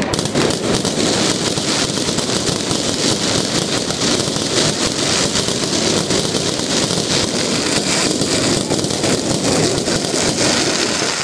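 Fireworks display at close range: a dense, unbroken barrage of crackling and bangs.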